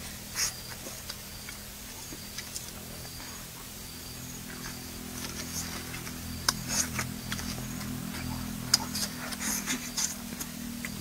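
A person eating close to the microphone: biting and chewing with wet mouth smacks and sharp clicks, sparse at first and coming thicker in the second half, over a steady low hum.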